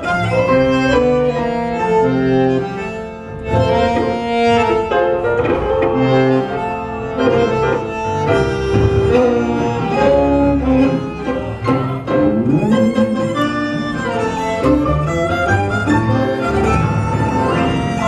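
Tango quintet playing live, with the violin prominent over bandoneon, piano, double bass and electric guitar.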